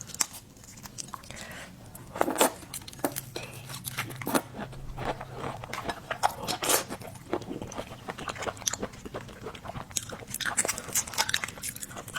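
Close-up eating sounds of a person biting and chewing red shrimp: irregular crunches and wet mouth clicks.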